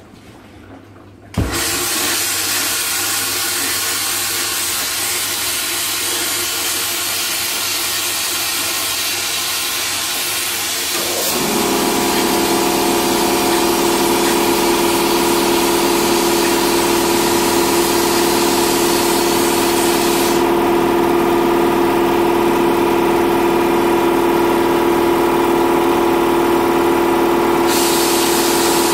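Homebuilt vapor blasting cabinet switched on about a second in: a sudden, loud, steady hiss of the wet blast spraying water and glass media inside the cabinet. About eleven seconds in, a motor's steady hum joins.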